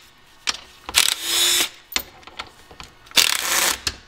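Cordless power driver backing out the actuator housing bolts on a truck's front axle, in two short runs of motor whine about a second in and again past three seconds, with small clicks of socket and bolts between.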